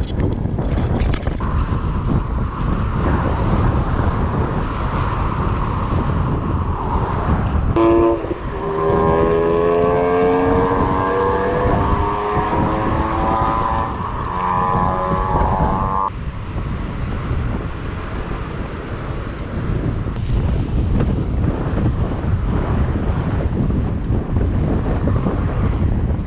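Heavy wind buffeting the microphone while riding a loaded touring bicycle on the road. From about eight seconds in, a pitched whine with overtones rises slightly for around eight seconds, then stops abruptly.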